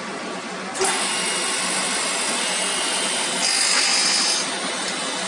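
Four-side sanding machine for wooden trouser hangers running with a steady mechanical whir, stepping up in loudness about a second in. For about a second past the middle a brighter, higher-pitched sound rises over it.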